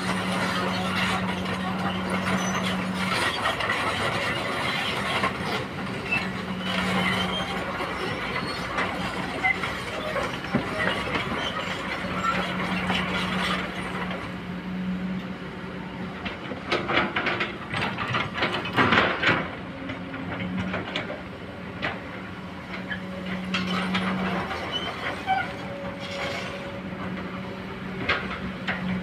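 Kobelco long-reach hydraulic excavator working: its diesel engine runs with a low hum that comes and goes, under scattered clanks and rattles of the bucket and soil, loudest about two thirds of the way through.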